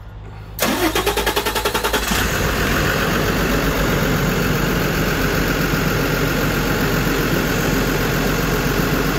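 Cummins diesel engine cranked by its starter in a rapid even rhythm, catching about two seconds in and settling into a steady idle.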